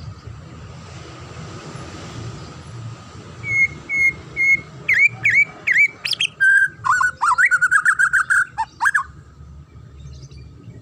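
White-rumped shama (murai batu) singing, starting about three and a half seconds in. It gives three even whistled notes, then a few swooping notes that rise and fall, then a quick run of chattering notes that stops after about nine seconds.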